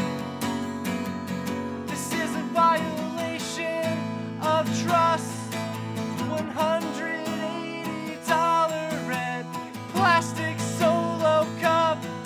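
Acoustic guitar strummed steadily, with a wordless sung melody rising and falling in phrases over the chords.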